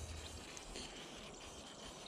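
Faint, steady hiss of a WD-40 aerosol can spraying through its straw nozzle, oiling the moving parts of a portable bandsaw mill.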